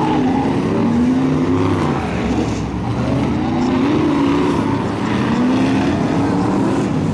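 Several BriSCA F1 stock cars' V8 engines running together on the track, their pitch rising and falling as the drivers rev on and off the throttle.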